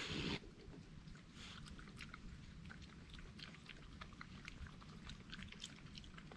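A wild animal chewing and smacking on food: many small irregular wet clicks. A brief loud rustle comes right at the start.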